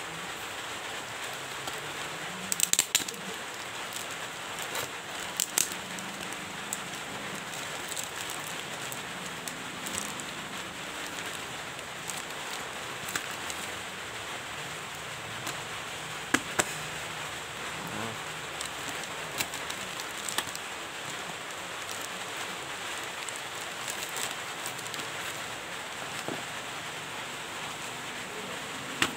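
Cardboard box and clear plastic bag being handled and unwrapped by hand: scattered crinkles and crackles, a handful of them sharper, over a steady hiss.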